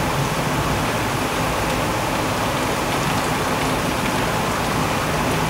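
Heavy thunderstorm rain falling steadily, an even hiss without a break.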